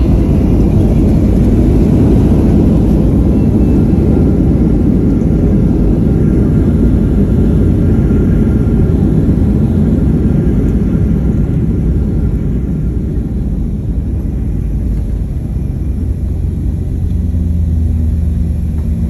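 Cabin noise of a Southwest Airlines Boeing 737 on its landing rollout: a loud, steady low rumble of the engines and wheels on the runway as the jet slows with its spoilers up. The rumble eases after about twelve seconds, and low steady engine tones come through near the end.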